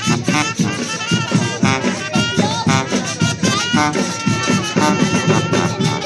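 School marching band playing: brass, including trumpets and a sousaphone, sounds held notes over a quick, steady drumbeat.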